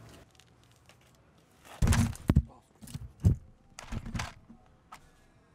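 A run of thumps and scuffing knocks of handling noise, as the camera is picked up and moved about among the tools on the ground. The loudest knocks come about two and three seconds in.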